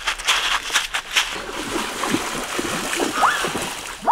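Quick running footsteps giving way to water splashing and sloshing as someone wades through a shallow creek, with a short rising chirp near the end.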